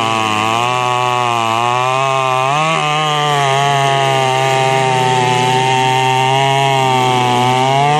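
Poulan Pro 655 boost-port two-stroke chainsaw running at full throttle while cutting through a large log. Its engine pitch wavers as it works in the cut, then rises a little and holds steadier from about three seconds in.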